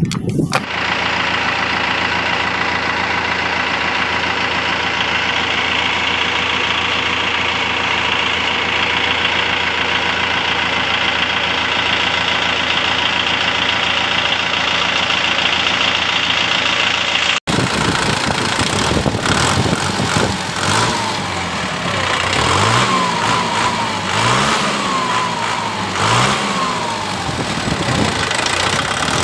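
Kubota M6040 tractor's diesel engine running at a steady idle. After a sudden break about two-thirds of the way in, it is revved up and let fall back several times in quick succession.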